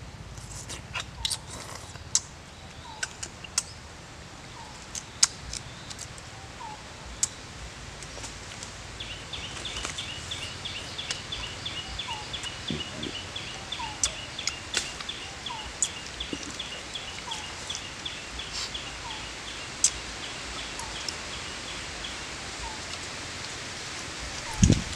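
Forest birds calling: a short falling note repeated about once a second, and a rapid high trill for about ten seconds in the middle. Scattered sharp clicks and smacks run throughout, and a short loud low sound comes near the end.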